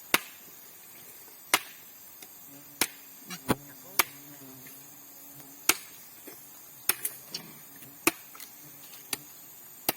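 Sharp knocks or strikes at irregular intervals, roughly one a second, over a steady high hiss, with faint voices in the background.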